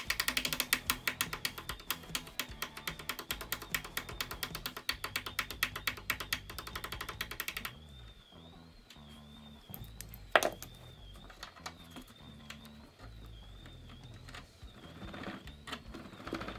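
Fast, even ratchet-like clicking from the end cap of a Volvo estate's luggage-cover roll as a small screwdriver works the nut on its spring rod; it cuts off abruptly about eight seconds in, followed about two seconds later by one sharp click and a few weaker ones near the end.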